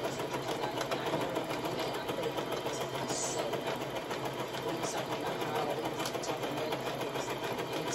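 Brother electric sewing machine running steadily, stitching through thick fringed woven blanket fabric.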